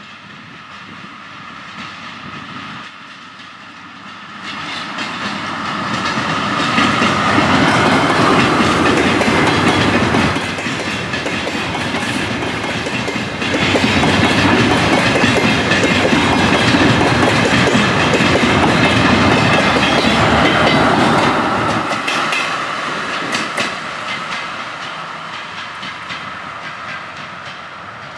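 DR1A diesel multiple unit approaching, passing close by and moving away: its diesel engine running and its wheels clattering over the rail joints. The sound builds up over the first few seconds, stays loud for about fifteen seconds as the cars go by, then fades as the train recedes.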